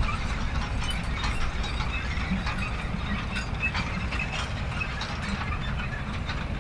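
Manure spreader running: a steady low rumble under continuous, irregular mechanical clanking and rattling.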